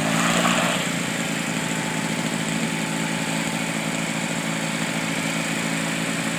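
Lawn mower engine running steadily through the race, a little louder in the first second.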